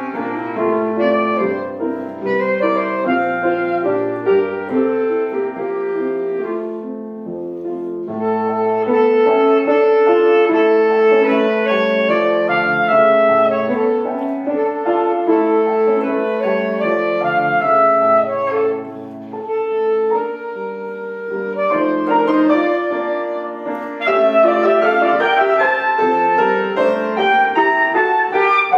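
An orchestral wind instrument playing a slow, held melody with piano accompaniment, easing off briefly about twenty seconds in before the two come back in fuller.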